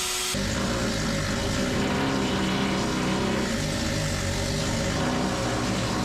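Steady drone of a running motor, cutting in abruptly a moment after the start.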